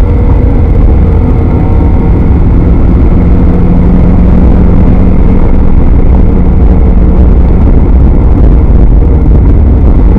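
Spec Miata's four-cylinder engine running hard at fairly steady revs, heard loud from inside the car, over a heavy low rumble.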